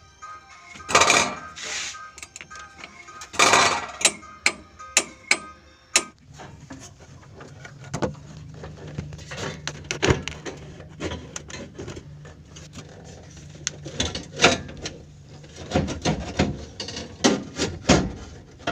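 Irregular metallic clicks and knocks of tools and engine parts being handled during engine work, with a low steady hum starting about six seconds in.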